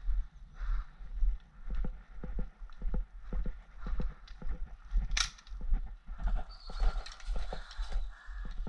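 Footsteps of a person walking briskly over leaf litter and bark chippings, a steady rhythm of about two thudding steps a second with rustling. A single sharp click sounds about five seconds in.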